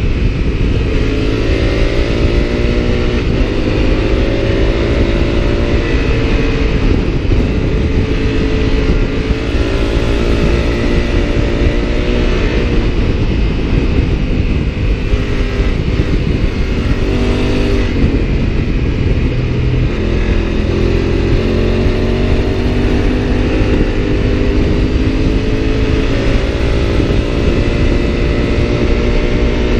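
Honda CRF1000L Africa Twin's 998 cc parallel-twin engine pulling hard at high road speed, about 130 to 170 km/h. Its pitch climbs, drops back several times, then climbs again, under heavy wind rush on the onboard microphone.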